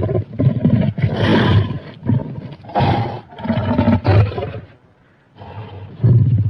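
Monster roar sound effect layered from animal and film-monster roars (ape, lion, grizzly bear): a string of deep roars and snarls each about half a second to a second long, a brief pause about five seconds in, then another roar begins.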